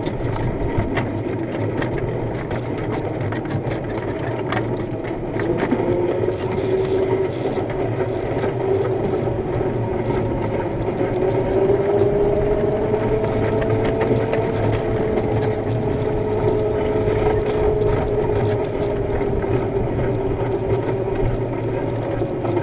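Ride-on miniature railway train running along its track: a steady motor whine that rises in pitch and gets louder about five seconds in as it picks up speed, with light clicks and rattles from the wheels and cars.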